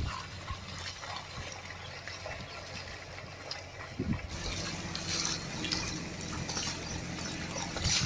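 Wet mud and water sloshing and splashing as a pair of bullocks drag a wooden leveling board through a flooded paddy field, with hooves and feet squelching. There is a short low thump about four seconds in, and crisper splashes after it.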